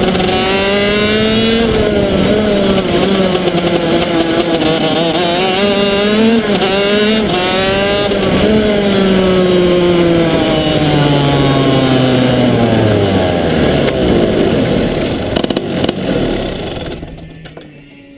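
125cc two-stroke shifter kart engine at racing speed, its revs climbing and dropping again and again as the gears are shifted. Then the revs fall steadily as the kart slows, and the engine goes quiet about seventeen seconds in.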